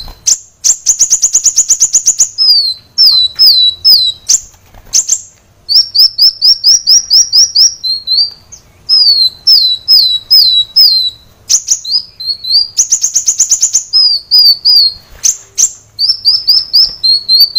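Kolibri wulung sunbird singing loudly: series of high, quick down-slurred notes, broken twice by fast rattling trills.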